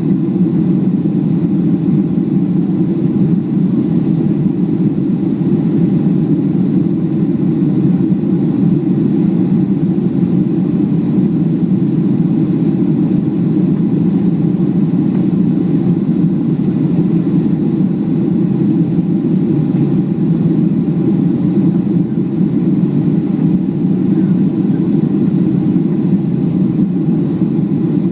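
Boeing 737 jet airliner heard from inside the passenger cabin: the engines and airflow make a loud, steady, low drone that holds even throughout.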